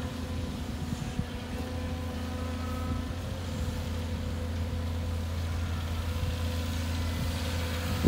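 Tracked excavator's diesel engine running steadily as it digs and lifts a bucket of soil: a constant low drone with a thin steady whine above it.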